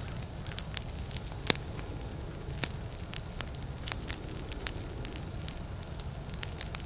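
Bonfire crackling: irregular sharp pops and snaps of burning wood over a low steady rumble of the flames.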